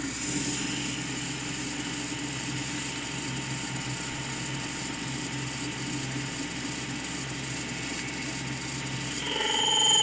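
Schaublin 102 VM lathe running under power feed, its steady mechanical hum carrying the turning tool as it feeds along a steel workpiece, cutting Toolox 44. Near the end a louder, high whine with several steady tones sets in.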